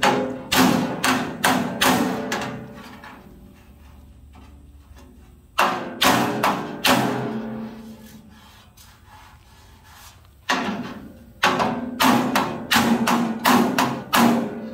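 Hammer blows on the steel dash panel of a 1966 Ford Bronco, struck against a body block held behind it to flatten the sheet metal distorted around drilled holes. The blows ring briefly and come in three quick runs: several in the first two seconds, a few more in the middle, and a fast string near the end.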